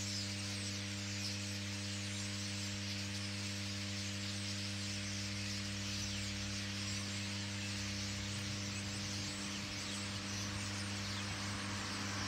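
Overhead high-voltage power lines humming: a steady low drone with several higher tones stacked above it. Over the hum comes the massed calling of a large starling flock, a dense high hiss-like chatter that thins near the end.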